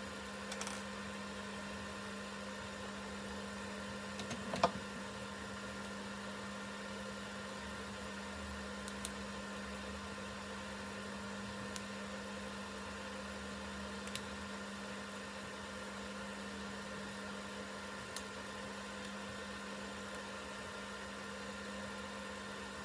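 A steady low electrical or mechanical hum with a few faint higher tones over it. A handful of small sharp clicks or taps come at irregular intervals, the loudest about four and a half seconds in.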